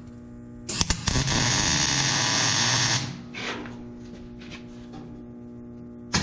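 Electric welder tack-welding the steel bed frame: a loud crackling hiss for about two seconds starting a second in, a brief burst after it, and another weld starting near the end, over a steady hum.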